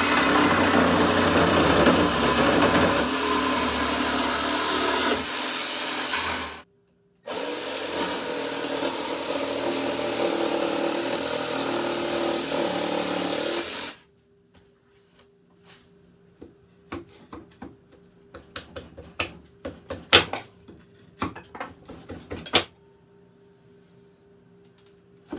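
A jigsaw cutting through old weathered pallet boards in two long runs, with a short break between them. Then comes a string of sharp metallic clicks and knocks as old nails are worked out of the boards with locking pliers.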